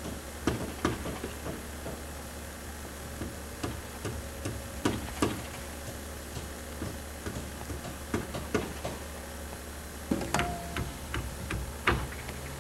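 Irregular knocks and clicks, scattered and uneven, over a steady low hum.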